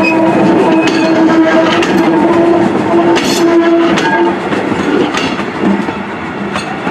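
Vintage passenger coaches of a steam train rolling past, wheels clicking over the rail joints, with a long steady pitched tone over them that stops about four seconds in, after which the train sound eases.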